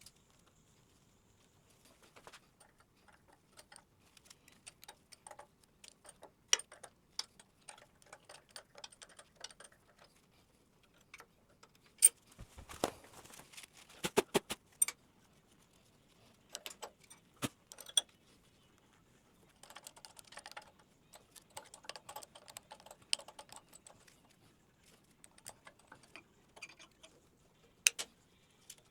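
Scattered metallic clicks, clinks and light scraping from a wrench and parts working on a jointer's cutter head as a straight knife blade is being changed, with a few sharper clicks now and then.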